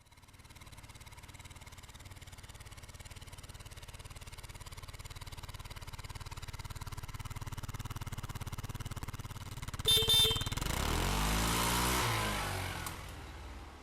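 Motorcycle engine running with a fast, even pulse, growing steadily louder as it approaches. About ten seconds in there is a brief sharp pitched sound, then the bike passes close and fades away.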